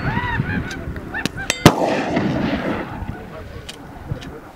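A single rifle shot from a scoped bolt-action rifle about a second and a half in, followed by an echo that fades over about a second.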